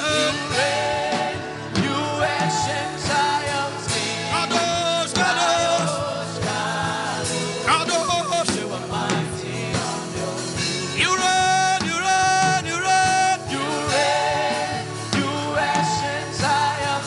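Gospel worship music: a sung melody with long held notes over a band with drums.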